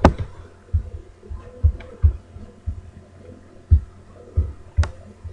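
A series of dull low thumps, about eight or nine at irregular intervals of half a second to a second, over a faint steady hum; one sharper click comes near the end.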